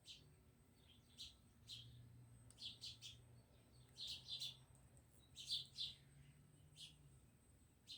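Faint bird chirping: short high chirps, singly and in quick pairs, about one a second, over a faint low hum.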